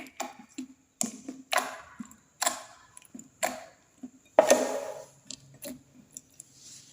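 Clear slime with glitter being kneaded and pressed by hand, its trapped air pockets popping and squelching in a run of separate wet clicks, about one or two a second, the loudest about four and a half seconds in.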